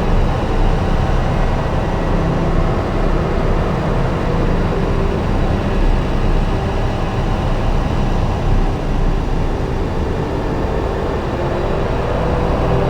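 Dense electronic noise drone from a Strega synthesizer and looped drone layers: a steady low rumble under a grainy, hissing haze that slowly shifts as a filter rolls. A brighter tone swells up near the end.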